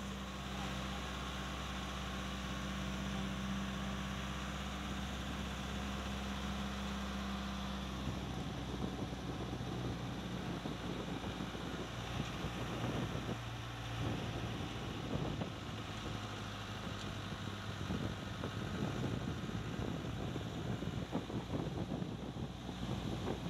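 Jeep engine running at a steady hum while riding along a road. After about eight seconds the hum weakens and gusty wind buffeting on the microphone takes over, mixed with engine and road noise.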